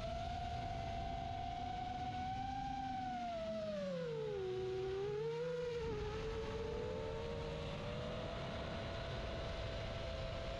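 Quadcopter's brushless motors and 4-inch three-blade props whining steadily in flight. The pitch sinks about four seconds in as the throttle eases, then climbs back and splits into two close tones, over a low rumble.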